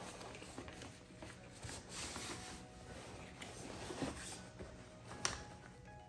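Rustling and handling of the nylon fabric and plastic frame of a baby play yard's changing-table panel as it is lifted and unfolded, with small knocks and one sharp click a little past five seconds in.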